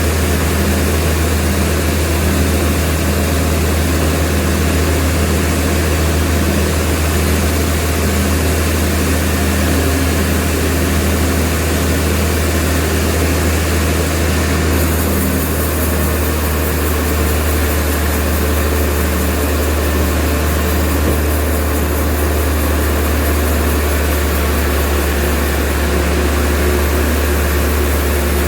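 Sawmill machinery running with a steady, deep drone and an even hiss over it; the hiss shifts about halfway through.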